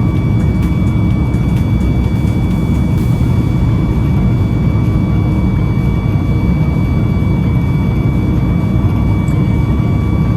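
Cabin noise aboard a Boeing 737 MAX 9 in flight: the steady rumble of its CFM LEAP-1B jet engines and rushing air, with a thin steady whine above it.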